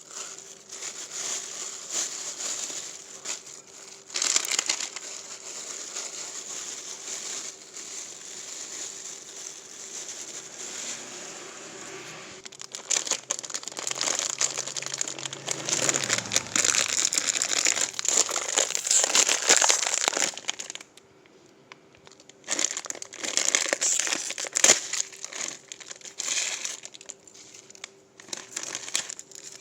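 Plastic packaging being handled, crinkling and crumpling in irregular bunches with a short pause about three quarters of the way through.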